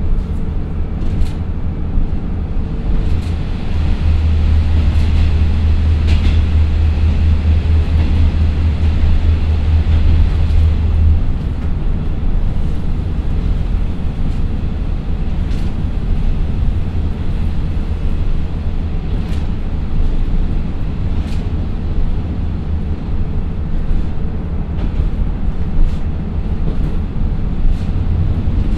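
Inside a JR Shikoku KiHa 54 diesel railcar on the move, its twin Niigata DMF13HS diesel engines running under load on an uphill grade with a steady deep drone. The drone swells for several seconds about three seconds in, then settles. Wheels running on the rail give a constant rumble with scattered sharp clicks.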